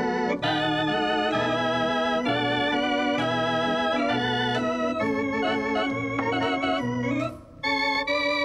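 Organ music: sustained chords with a wavering vibrato over a bass line whose notes change about once a second. It breaks off briefly about seven and a half seconds in, then resumes.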